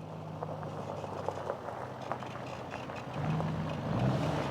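Tuned Duramax L5P 6.6-litre V8 turbo-diesel running, with scattered light ticks over a low steady drone. About three seconds in, low held notes of a song's intro come in over it.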